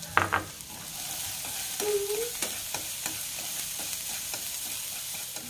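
Minced garlic and lemongrass sizzling in hot oil in a steel wok, stirred with wooden chopsticks that tick and scrape against the pan, with a few sharp clacks just after the start. The aromatics are frying toward golden.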